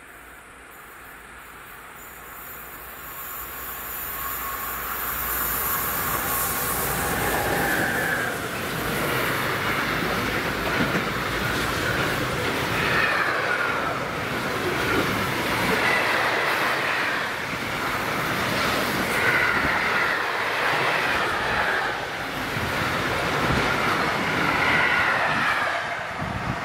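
A Siemens Vectron electric locomotive approaches and a long container and tank-container freight train rolls past at speed, growing louder over the first few seconds. It then holds at a steady loud rush of wheels on rail, with wavering squealing tones coming and going.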